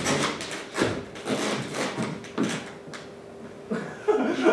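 Footsteps on a wooden stage floor: a few heavy steps about a second apart, followed by a brief voice near the end.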